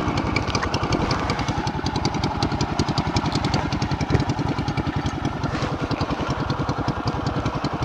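Motorcycle engine running at low revs with a steady, rapid putter of exhaust pulses, the bike rolling slowly.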